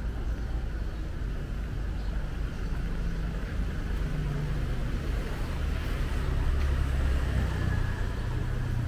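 Street traffic ambience with a motor vehicle's engine running close by, its low hum getting louder and shifting in pitch about six to eight seconds in.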